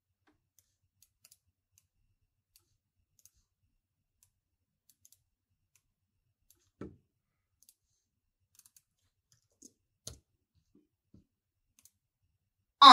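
Faint, scattered clicks of a computer keyboard and mouse, a few at a time, with long stretches of near silence between them.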